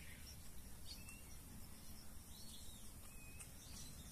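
Quiet rural ambience: a steady low background hiss, with a few faint, short bird chirps now and then.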